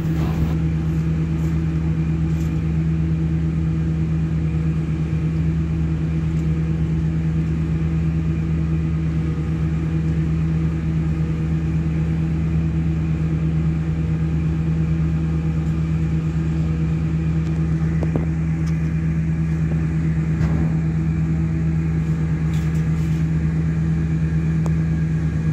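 Steady, even drone of a running engine or motor, low and unchanging in pitch, with a few faint clicks.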